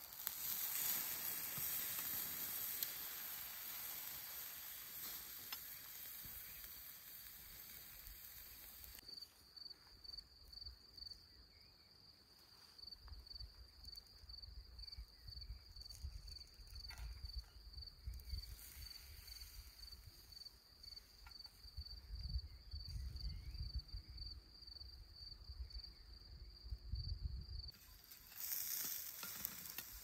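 Fish sizzling in a wire grill basket over hot charcoal, a steady hiss, loudest for the first nine seconds or so and again near the end. In between, an insect chirps steadily, about two short high chirps a second, with wind rumbling on the microphone.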